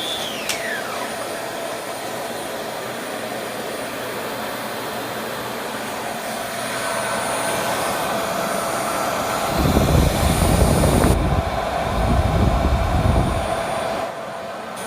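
Upright vacuum cleaner running with a steady whooshing hum. A whine drops in pitch right at the start, and a heavier low rumble comes in about ten seconds in and lasts some four seconds.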